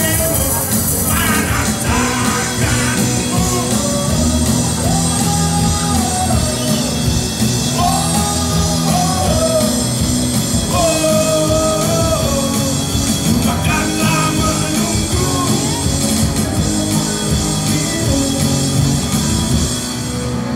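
Live rock band playing a song, a man singing over electric guitars, bass guitar and drums.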